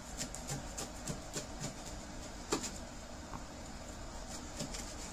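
Knife sawing through a baked calzone's crust on a cutting board: irregular small crackles and light clicks, the sharpest one about two and a half seconds in.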